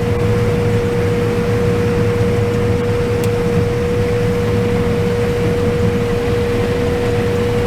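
Combine harvester running steadily while picking corn, heard from the operator's seat: an even rumble and rush of machinery with one constant mid-pitched whine.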